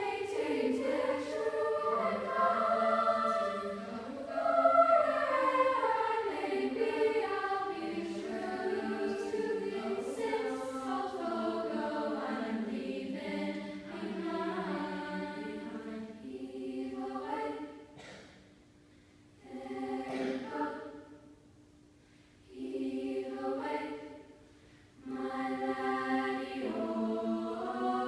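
Female vocal ensemble singing in harmony. In the last third the singing breaks into short phrases with brief pauses between them.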